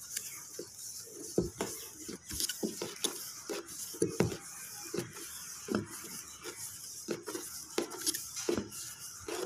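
Teflon thread-seal tape being pulled off its spool and wound by hand around the plastic threads of a water-tank connector: irregular small clicks and rubbing.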